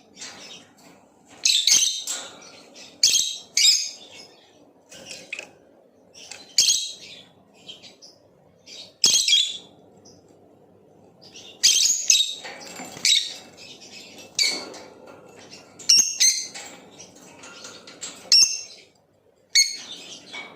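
Blue opaline lovebird chirping: short, shrill chirps in irregular bursts every second or two, with quieter chatter between them.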